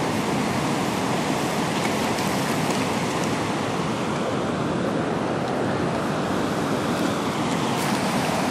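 Whitewater of the Colorado River's Tanner Rapids rushing in a steady, unbroken roar.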